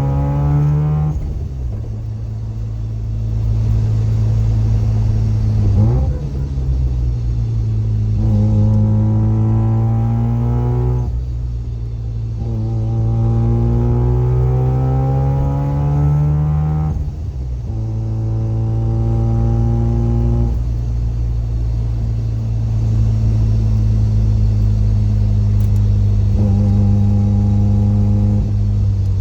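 Mazda FC RX-7's rotary engine and loud exhaust under way, pitch climbing and dropping sharply several times, then holding steady at a cruise. Mixed in is the car's differential gear noise, which the owner puts down to newly fitted solid delrin differential and subframe bushings.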